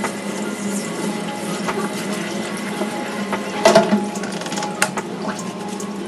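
Tap water running steadily, with a brief louder burst of noise about three and a half seconds in.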